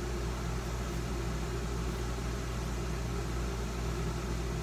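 Steady low hum with an even hiss, unchanging throughout: constant background machine noise.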